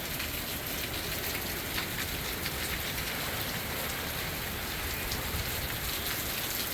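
Heavy hurricane rain pouring down in a steady, unbroken rush.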